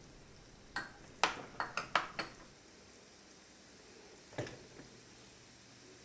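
Kitchen utensils clinking and tapping against a pan: a quick run of about six clinks in the first two seconds or so, then a single knock a little past the middle.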